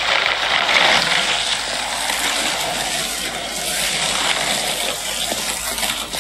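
Skateboard wheels rolling over wet asphalt, a steady hiss of water under the wheels.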